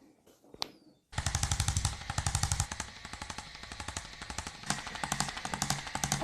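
A rapid, even run of sharp mechanical taps, about nine a second, starting suddenly about a second in and carrying on more softly.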